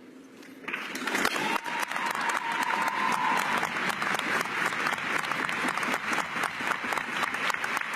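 Applause from a chamber full of seated members, starting about a second in and going on steadily as a dense patter of many hands.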